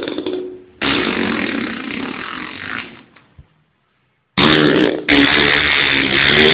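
Loud, long, low, rough drawn-out sounds of unknown origin, of the kind circulated as mysterious 'strange sounds' heard in the sky. One sound ends just after the start and a second fades out about three seconds in. After a short silence, another starts about four and a half seconds in and keeps going.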